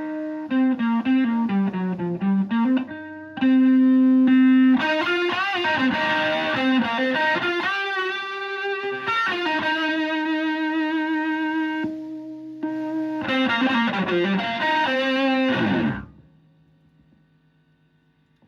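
Electric guitar through a treble booster into a Fender Twin Reverb-style amp, playing a lead phrase of held, bent and vibrato notes with a bright, slightly distorted edge. The playing cuts off about two seconds before the end.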